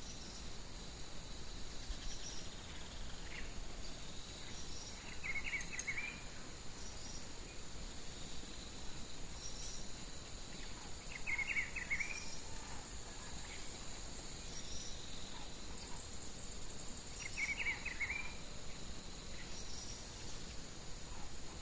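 Insects trilling steadily in high, even tones, with a bird repeating a short song phrase about every six seconds and fainter chirps from other birds between.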